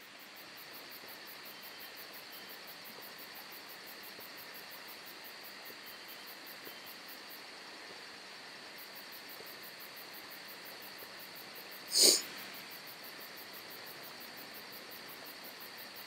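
Faint, very high-pitched chirping that pulses about four times a second over a steady room hiss. It stops for a moment near the middle and then starts again. A brief sharp noise comes about twelve seconds in.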